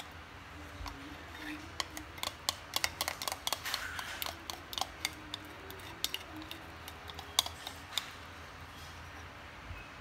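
Quick, irregular clicks and taps of a spoon against a glass mixing bowl as pancake batter is scooped and poured into a frying pan, thickest in the middle and thinning out near the end, over a low steady hiss.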